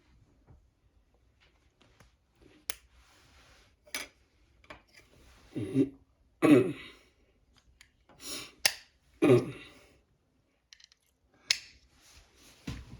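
Plastic construction-kit parts being handled and snapped together: scattered sharp clicks and rattles at irregular intervals.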